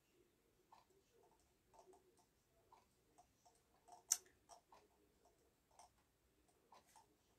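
Near silence broken by faint, irregular clicks of a computer mouse being clicked and scrolled, with one sharper click about four seconds in.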